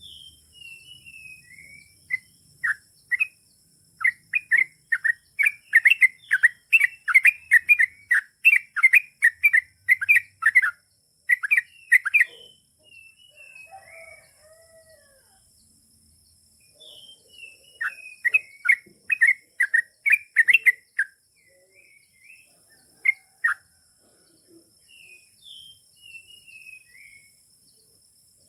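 Yellow-vented bulbul singing long runs of quick repeated chirping notes, about three a second: one long run, then a shorter one after a pause, with loose gliding calls between. A steady high insect drone runs underneath.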